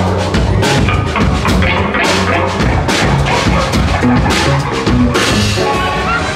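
Live rock band playing, with a steady drum-kit beat in front and low bass notes underneath.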